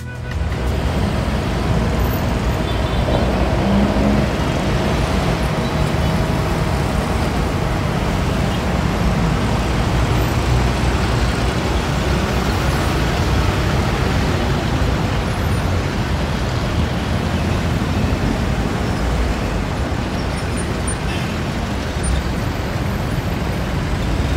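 Busy city road traffic: cars, jeepneys, buses and motorcycles driving past, a steady traffic noise.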